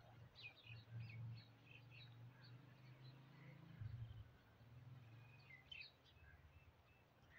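Very faint outdoor ambience: scattered short high chirps of small birds, clustered at the start and again past the middle, over a low steady rumble.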